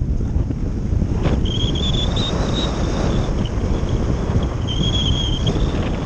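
Airflow buffeting the onboard camera's microphone on a Phase 6 RC slope-soaring glider in flight, a steady rush of wind noise. A thin high whistle wavers and comes and goes over it.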